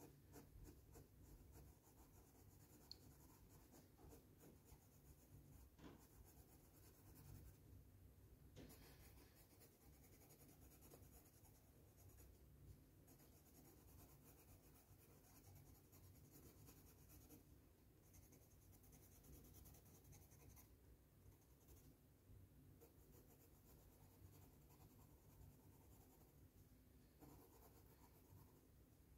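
Faint scratching of a yellow Crayola colored pencil on sketchbook paper, in rapid short colouring strokes with brief pauses.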